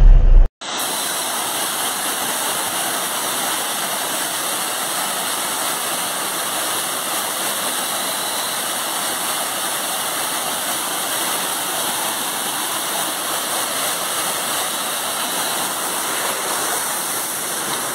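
Small waterfall pouring over rocks into a stream: a steady, unbroken rush of falling water. A loud low rumble cuts off about half a second in, just before the water starts.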